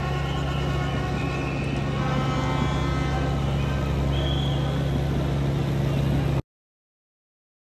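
Ride-on reel mower's engine running steadily as it drives across the grass, cutting off suddenly about six seconds in.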